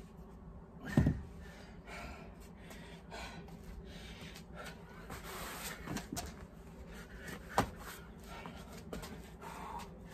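Dull thuds and knocks of dumbbells and a body landing on an exercise mat during burpees, the loudest about a second in and lighter ones near the middle, with hard breathing between.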